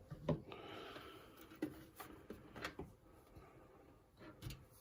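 Faint handling noise inside a PC case: a few small, sharp clicks and taps, the loudest about a third of a second in, as a front-panel connector is fitted over the motherboard's header pins.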